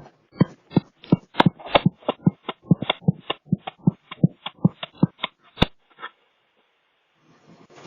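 An animal calling on the porch in a rapid run of short, sharp calls, about three a second, that stops about six seconds in.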